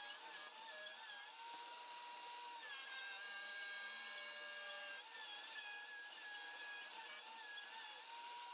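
CNC router cutting circles out of hardboard. The machine makes a whine of several tones that alternately glide up and down and hold level for a second or two, changing pitch every second or so, over a steady hiss.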